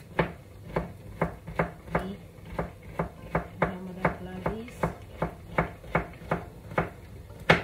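Kitchen knife chopping bitter melon on a cutting board: a steady run of sharp knocks, about three a second, with the last one near the end the loudest.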